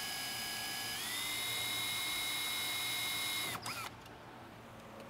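Cordless drill motor whining as it drills a small pilot hole through the double-wall steel strut tower of a 2010 Chevrolet Camaro. The whine steps up in pitch about a second in, holds steady, then stops about three and a half seconds in.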